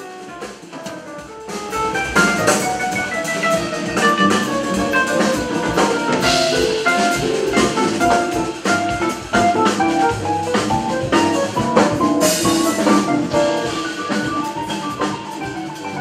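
Live jazz trio of keyboard, upright double bass and drum kit playing. Quieter at first, then fuller from about two seconds in, with cymbal crashes.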